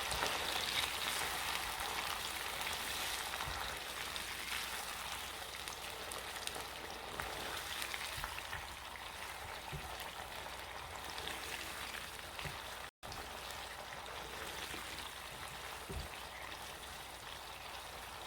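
Onion and bell pepper with ketchup-and-vinegar sauce sizzling in hot oil in a wok, a steady hiss that slowly fades. It cuts out for an instant about thirteen seconds in.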